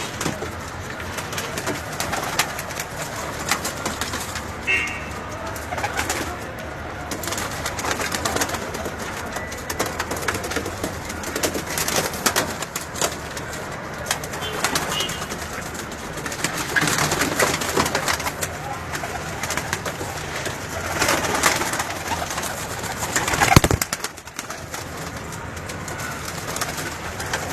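Domestic pigeons cooing among constant rustling and scratching, with one loud sharp knock near the end.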